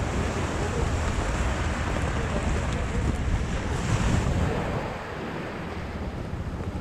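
Wind buffeting the microphone over the rush of ocean surf.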